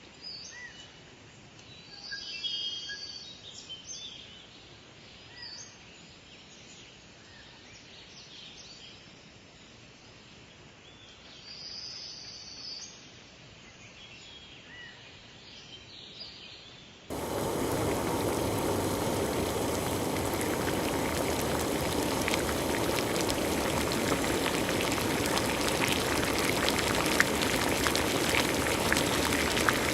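Quiet outdoor ambience with scattered short bird chirps, cut off abruptly about 17 seconds in by a much louder, steady, dense hiss full of fine crackles, like heavy rain or liquid boiling.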